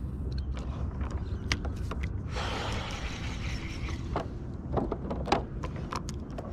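Spinning fishing reel and rod being worked: scattered sharp mechanical clicks and a hiss lasting about a second and a half near the middle, over a steady low rumble.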